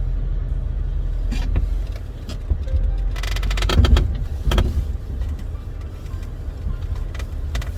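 Off-road vehicle driving slowly over rough trail: a steady low engine and drivetrain rumble, with a cluster of knocks and rattles about three to four and a half seconds in and more just before the end.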